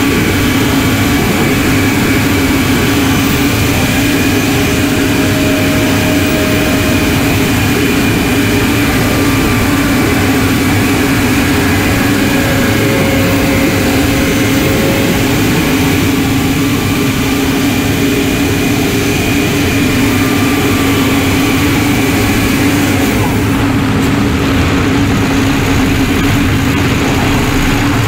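Detroit Diesel Series 60 12.7-litre inline-six diesel and its variable-vane turbocharger running with the truck under way, heard close up in the engine bay: a loud, steady drone with faint thin tones drifting slowly in pitch. The high hiss thins out about 24 seconds in.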